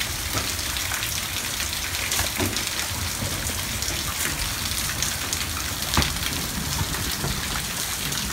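Heavy hail mixed with rain: a steady hiss of falling precipitation, dotted with many sharp hailstone strikes, one louder than the rest about six seconds in.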